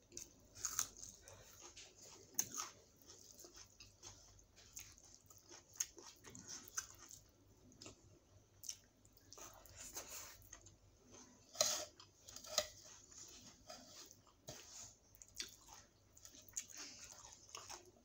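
Close-up chewing and wet lip smacks of a person eating rice, dal and potato curry by hand, in irregular short clicks, the loudest about halfway through.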